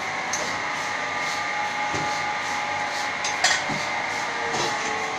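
Insert moulding machine running with a steady mechanical hum and a faint regular pulsing about twice a second. One sharp metallic clack about three and a half seconds in, with a few lighter knocks around it.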